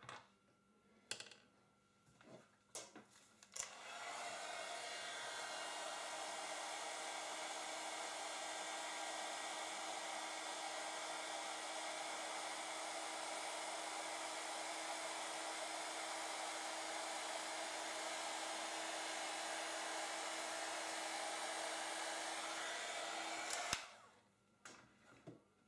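Hand-held hair dryer blowing steadily for about twenty seconds, drying freshly applied paint on a miniature figure. It comes on a few seconds in after some faint clicks of handling and cuts off suddenly with a click near the end.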